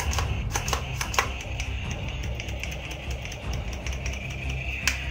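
A few sharp plastic clicks from a toy flintlock pistol being handled, several in the first second and one near the end, over steady background music.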